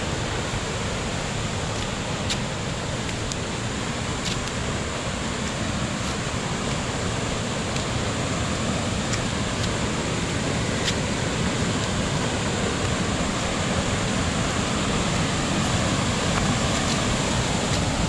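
Waterfall's rushing water, a steady even rush of noise that grows slightly louder toward the end, with a few faint clicks.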